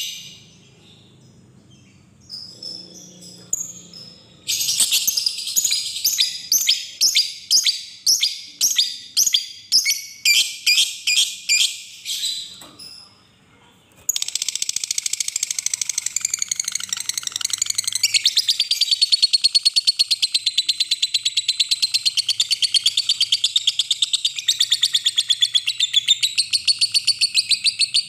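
Fischer's lovebird calling. It gives a few scattered chirps, then a run of sharp, high chirps about two a second. After a short pause about halfway, it breaks into a long, fast, unbroken chatter, the 'ngekek' call.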